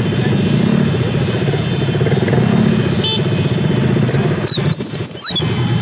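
Many scooter and motorcycle engines running together as a steady, dense rumble. A brief high tone sounds about three seconds in, and a high falling tone near the end.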